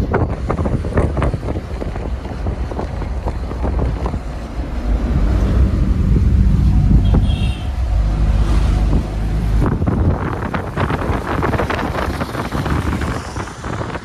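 Car driving with its windows open, heard from inside the cabin: wind buffeting the microphone over engine and road noise. A steadier low engine hum stands out from about five seconds in and cuts off sharply just before ten seconds.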